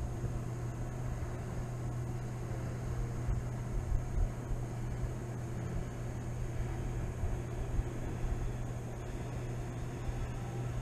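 Boat motor running steadily with the boat under way: an even low hum with a faint high whine above it.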